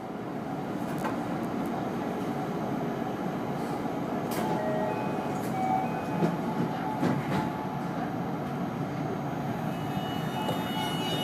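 Onboard sound of a JR West 207 series electric train car with a Toshiba GTO inverter: a steady rumble with a few clicks. About ten seconds in, the GTO inverter's whine starts up as a set of steady tones. This car's inverter is known for an off-pitch, abnormal sound.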